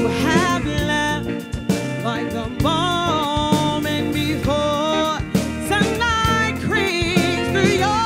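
Live soul-rock band playing: a woman sings long, wavering held notes over electric guitars, bass guitar and a drum kit.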